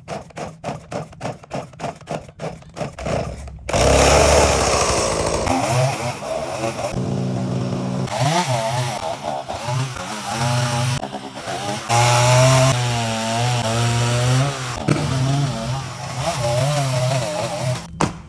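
Stihl chainsaw running and cutting wood, its engine pitch wavering up and down as it works under load. It is preceded for the first few seconds by a fast regular clatter of about four strokes a second.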